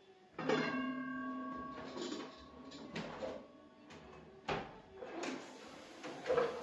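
Kitchenware being moved about in a lower kitchen cabinet. There is a ringing clank about half a second in, then several sharper knocks and rattles.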